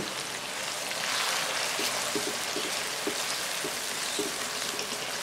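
Chili spice paste with lemongrass, ginger, galangal and leaves sizzling steadily in hot oil in a non-stick wok, with a few light scrapes of the spatula as it is stirred.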